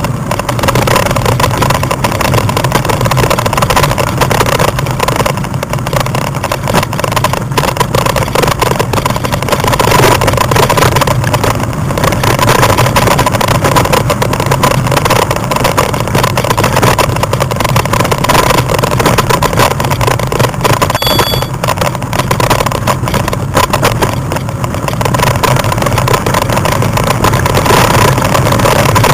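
Continuous loud ride noise from a bike-mounted camera rolling over a gravel track: a steady rumble with constant fine rattling and buffeting.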